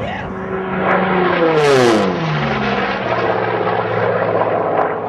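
Piston-engined unlimited-class racing airplane flying fast past the listener. Its engine drone falls sharply in pitch as it goes by, from about a second in to near three seconds, then carries on as a steady lower drone.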